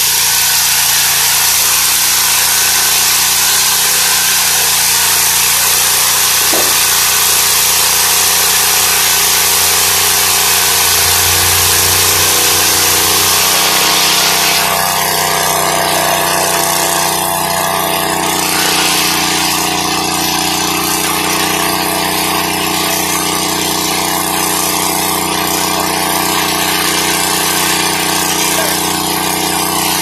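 A homemade circular-blade sawmill, modelled on a Lucas Mill and driven by a twin-cylinder engine, runs steadily under load while its blade cuts through a log with a loud hiss. About halfway through, the sawing hiss drops away and mostly the engine's steady running is left.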